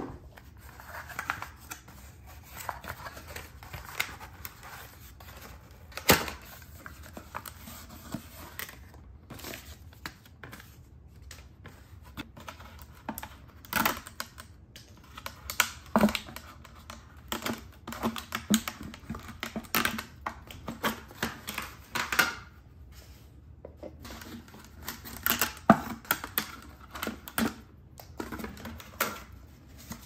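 Cardboard packaging and plastic outlets being handled as they are unboxed: irregular clicks, taps and scrapes, with a few sharper knocks.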